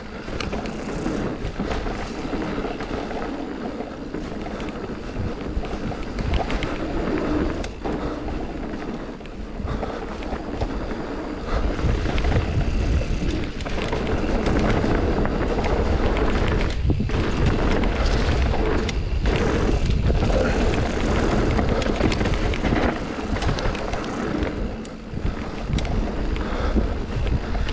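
Mountain bike being ridden over a muddy trail: steady wind noise on the microphone with the tyres and frame rattling, and a heavier low rumble from about twelve seconds in.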